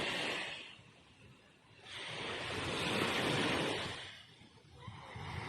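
Waves washing onto a beach, the hiss of each surge swelling and fading: one ebbs about a second in, the next rises about two seconds in and dies away near four seconds, and another builds at the end.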